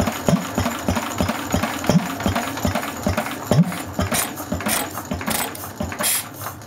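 1949 Lister D 1½ hp single-cylinder engine running slow on its governor, a few even firing beats a second; in the latter part the beats fade as the engine is shut off and runs down.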